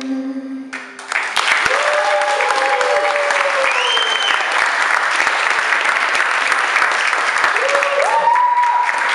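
The song's final held note ends about a second in, and a small audience breaks into applause, with a few voices calling out over the clapping.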